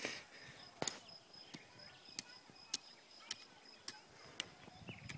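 Garden sprinkler ticking faintly, with sharp clicks coming about twice a second at a steady pace.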